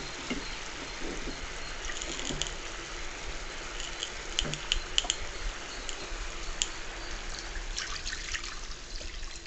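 Sugar syrup boiling in a pan: a steady hiss with scattered small pops and clicks, with a wooden spatula in the bubbling syrup. Near the end, cornflour slurry is poured into the boiling syrup.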